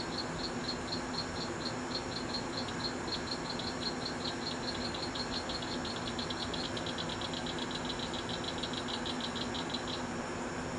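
Cricket chirping in an even series of short, high pulses, a few a second at first and quickening past the middle before stopping near the end, over a steady low hum.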